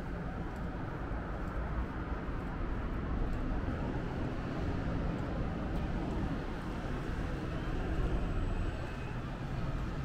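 Steady low rumble of city background noise, with faint light ticks now and then.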